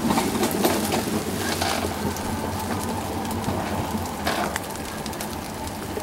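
Alpine coaster sled running down its steel tube track: a steady rumble of the wheels on the rails, with a few short clicks and rattles.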